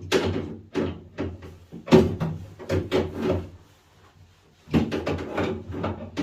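A run of sharp knocks and clatters, as of a panel or cupboard door being handled and shut, over a faint steady low hum. The knocks pause for about a second after the middle, then resume.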